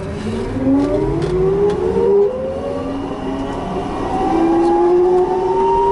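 SAM electric three-wheeler's drive motor whining as the car accelerates, several tones rising slowly in pitch with speed, with a fresh rising tone starting about four seconds in.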